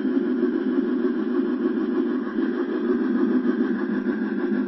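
Steady whirring drone of an HO scale C&O 2-6-6-6 model steam locomotive running under load up a grade with a long coal train: motor, gears and wheels on the rails, heard from on board the train.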